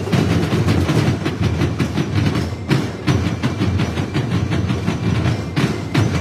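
Marching drumlines playing fast, dense rolls and strokes on field drums together, with two short breaks in the playing, about halfway and near the end.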